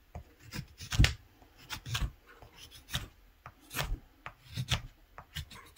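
Mora carving knife shaving thin curls off a wooden spatula blade: a run of short scraping cuts, one or two a second and unevenly spaced, the loudest about a second in.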